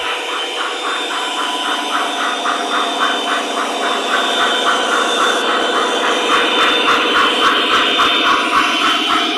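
Lionel Legacy SD70ACE O-gauge model diesel locomotive running, its onboard sound system playing a steady diesel engine sound with a fast, even pulsing over several held tones.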